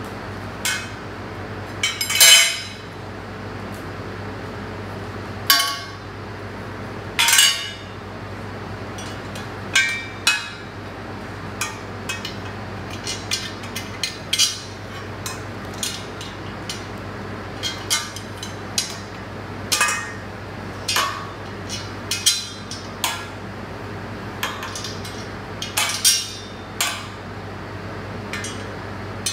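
Irregular clinks and knocks of metal laundry-organizer tubes and parts being handled and set down, a few louder strikes among many lighter taps, over a steady low hum.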